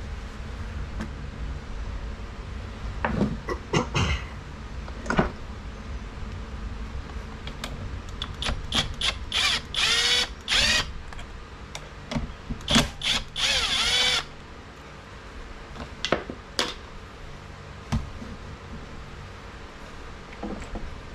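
Handheld power drill-driver running in two short bursts of about a second each, spinning out bolts to free the blade adapter from the engine's crankshaft, with the motor pitch winding down at the end of each. Metal knocks and clatter of tools and parts come before and after.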